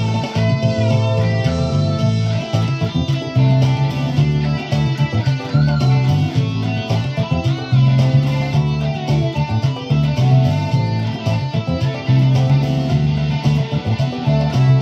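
Electric guitar playing a boogie tune, with steady strong low notes under a busy run of picked notes.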